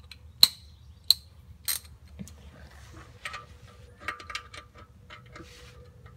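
Socket ratchet clicking as the oil drain plug is snugged tight: three single clicks a little over half a second apart, then two short quick runs of clicks.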